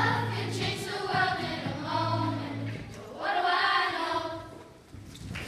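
A class of children singing together in a choir, two sung phrases with a short break about three seconds in. The song ends and the last note dies away about four and a half seconds in.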